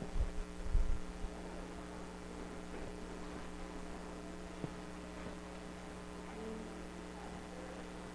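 Steady electrical mains hum from the sound system. A few dull low thumps in the first second or so, and a faint click about halfway through.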